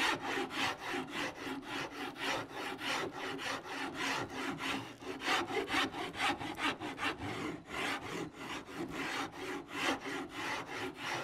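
The finer side of a farrier's rasp filing the back of a wooden guitar neck in quick back-and-forth strokes, about three a second. It shaves the wood down to shape the neck's C-shaped contour.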